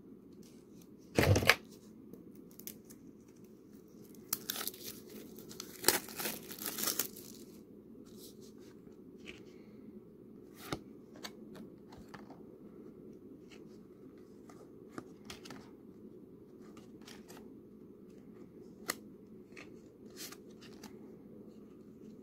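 Plastic wrapping being torn off a new deck of game cards, with a loud tear about a second in and a run of tearing and crinkling from about 4 to 7 seconds in. After that come faint scattered clicks of the stiff cards being handled and flipped.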